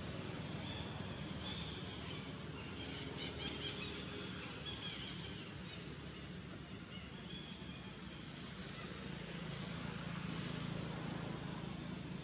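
Outdoor background noise with a steady low rumble, and a quick run of short, high chirps or squeaks about three seconds in.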